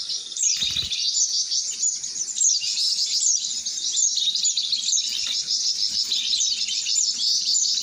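A dense, continuous chorus of small songbirds: rapid high chirps and many short falling notes overlapping without a break.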